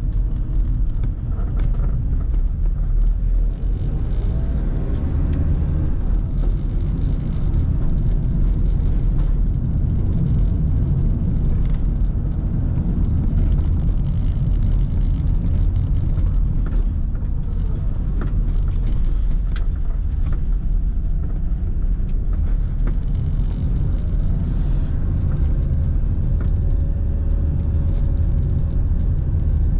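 Car driving on a road: a steady low rumble of engine and tyres.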